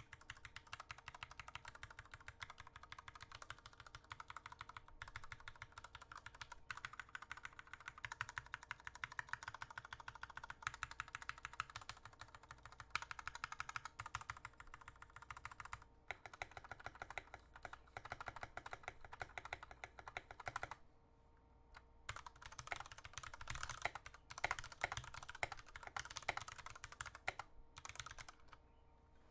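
Fast typing on a custom mechanical keyboard: a dense, continuous run of key clacks that pauses for about a second two-thirds of the way through, then resumes and stops just before the end.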